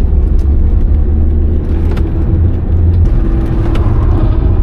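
Alfa Romeo 156 1.9 JTD's four-cylinder turbodiesel and road noise heard from inside the cabin while driving: a steady low rumble with a few faint clicks.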